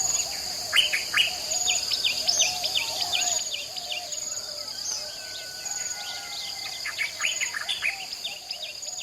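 Nature ambience of birds chirping over a steady high drone of insects, with evenly repeating insect trills on top. The bird calls are short downward chirps, busy at first and thinning out in the middle.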